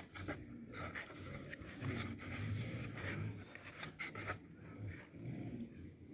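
Plastic bucket and plastic feeder tray knocking, clicking and rubbing against each other as they are handled and tilted, with repeated low sounds from an animal behind.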